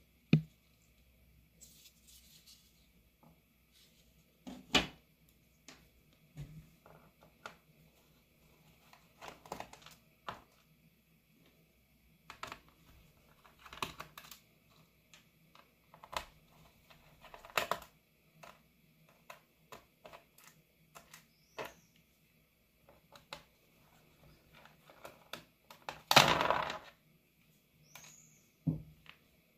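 Irregular small clicks, taps and knocks of laptop disassembly: a small screwdriver, screws and the laptop's plastic case being handled. Near the end comes a louder scrape lasting about a second.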